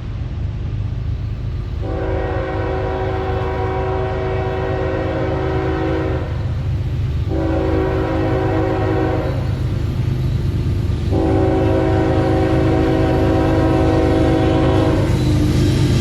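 Diesel locomotive air horn blowing a series of long and short blasts, with the low rumble of the approaching train underneath and growing louder. The last blast shifts lower in pitch near the end as the locomotive draws level.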